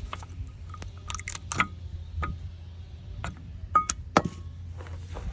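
Sharp metallic clicks and clinks, a few with a brief ring, as brake pads and tools are worked out of a Toyota FJ40's front disc brake caliper. A steady low hum runs underneath.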